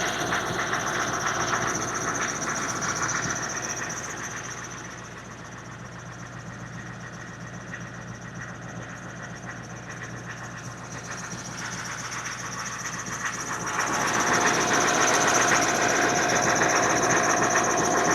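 Military Humvee (HMMWV) on the move: its diesel engine and drivetrain running, with a steady high whine over the noise. It eases off for a while, then grows louder again about fourteen seconds in.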